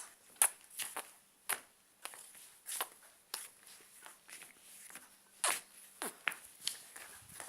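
A string of short, irregular clicks and taps, like handling noise.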